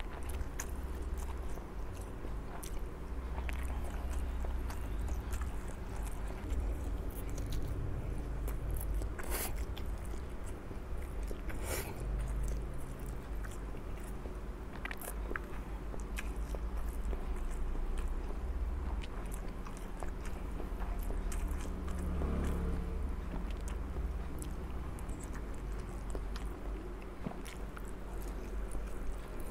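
Close-up chewing and slurping of instant fried noodles (mie goreng) eaten by the forkful, with many small scattered clicks.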